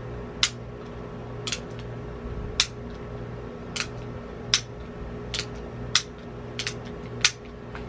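Beretta 950 Jetfire .25 ACP pistol firing a string of reloaded rounds: about nine sharp shots, roughly one a second, five of them louder than the rest.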